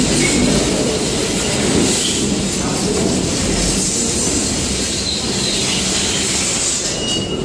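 Subway train pulling into the station alongside the platform: a steady, loud rumble of steel wheels on the rails, with faint high squeals near the end as it slows.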